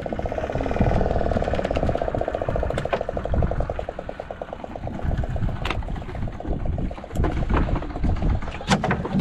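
A boat engine running with a fast, even pulse that fades after about four seconds, over a low rumble, with a few sharp knocks.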